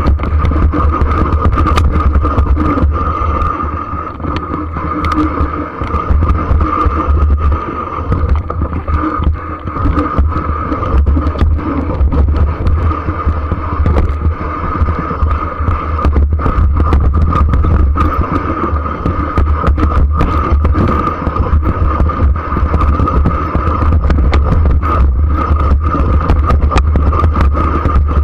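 Ride noise from a mountain bike descending rough grassy ground: a steady rumble of wind buffeting over a handlebar-mounted camera, with frequent rattles and knocks from the bumps, and a steady high hum throughout.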